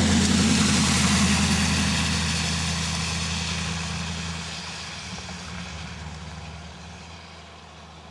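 A car passing close on the road, its engine and tyre hiss loud at first and then fading slowly over several seconds as it drives away.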